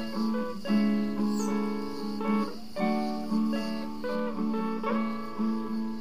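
Solo acoustic guitar (violão) fingerpicked, individual notes plucked one after another over a repeated low bass note.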